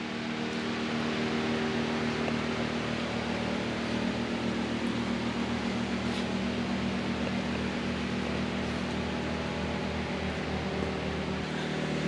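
Steady mechanical hum with a low, unchanging drone and a hiss on top, swelling up over the first second or so.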